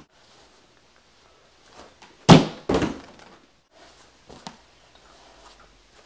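Two loud thumps about half a second apart, a little over two seconds in, followed by a fainter knock near the middle.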